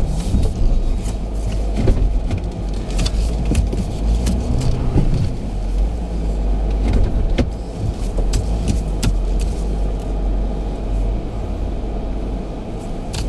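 Low engine and tyre rumble heard from inside the cabin of a Jeep Grand Cherokee crawling slowly over a dirt trail, with scattered sharp crackles and ticks from brush and gravel against the body and tyres.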